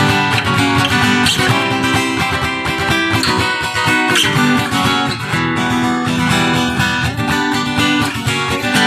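Acoustic guitar strumming chords in a steady rhythm, moving through a chord progression.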